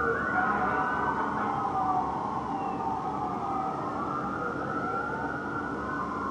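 Fire trucks' electronic sirens wailing, two or more overlapping and out of step, each rising and falling slowly in pitch.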